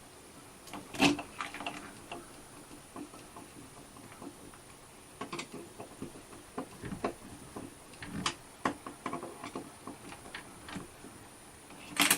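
Scattered light clicks and taps of hand work on an RV door's keyless lock handle assembly, with a sharper knock about a second in.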